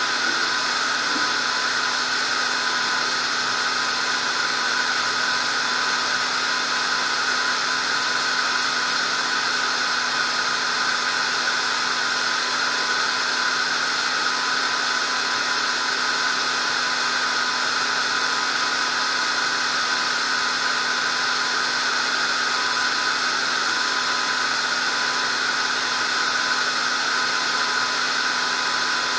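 Steady, unchanging machine hum and hiss with a constant high whine, from a motor or fan of unknown kind.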